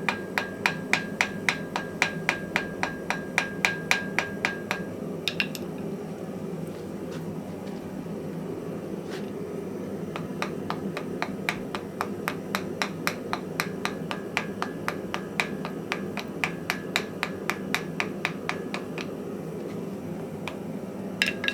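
Hammer blows on metal at an anvil during forging, in quick runs of about three strikes a second with a ringing tone, stopping for a few seconds midway with only scattered blows, then resuming. A steady low rushing noise runs underneath.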